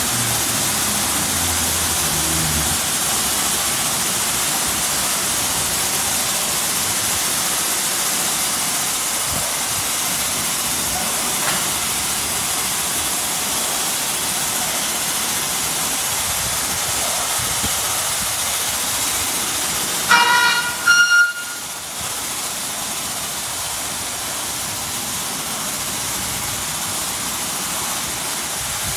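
Ryko SoftGloss Maxx 3 automatic car wash spraying water over a car, a steady loud hiss. About twenty seconds in, a brief high tone with several pitches sounds for about a second and a half.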